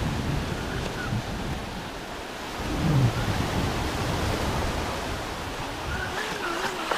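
Surf washing over a shallow sandy beach, with wind buffeting the microphone in low rumbles, strongest about three seconds in. A faint wavering whine is heard near the end.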